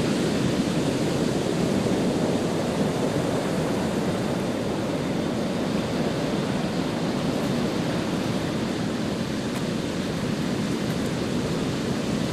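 Steady rushing noise of sea waves and water surging into a rock-lined river-mouth channel.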